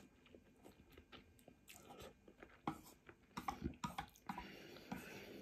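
Close-miked chewing of a mouthful of egg noodles: faint, irregular wet mouth clicks and smacks, louder in the second half.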